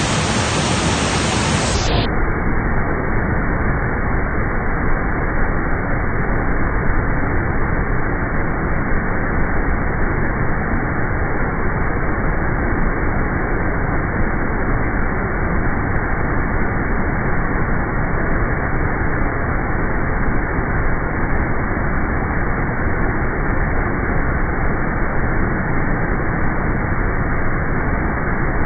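Steady, unbroken rush of fast-flowing floodwater, dull and muffled.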